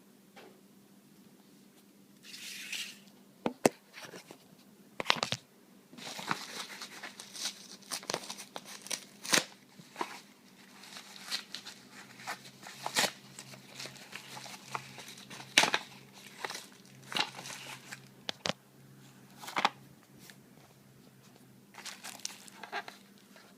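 Plastic packaging being handled and opened: irregular crinkling and rustling, with sharp clicks and snaps scattered throughout.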